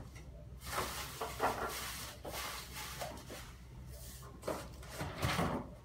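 Cardboard shipping box being unpacked by hand: flaps and packing rustling and scraping, with a few light knocks as the contents are handled.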